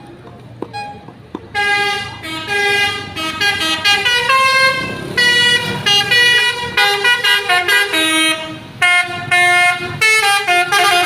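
Multi-tone 'telolet' bus horn playing a fast tune of short toots that jump between pitches, starting about one and a half seconds in.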